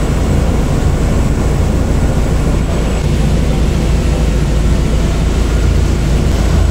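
A fishing boat's engine running steadily under way, a loud constant low drone, with water rushing along the hull.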